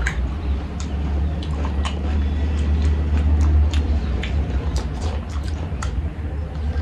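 Eating sounds: chewing, mouth clicks and smacks, and fingers working rice on a banana leaf, heard as scattered sharp clicks over a steady low hum.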